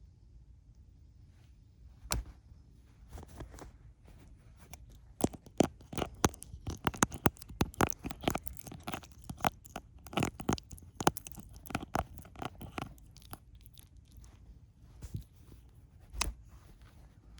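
A young tabby kitten biting and clawing at the camera, its teeth and claws making a flurry of irregular clicks, taps and scrapes right at the microphone, densest in the middle with single knocks near the start and end.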